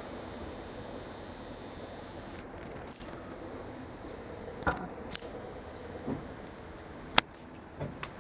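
Insects singing in a steady, high, unbroken trill, with a second, lower trill that stops about two and a half seconds in. A few scattered clicks and knocks occur, the loudest a sharp click about seven seconds in.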